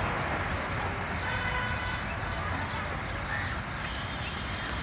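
Diesel-hauled express passenger train running away along the track, its rumble slowly fading as it recedes.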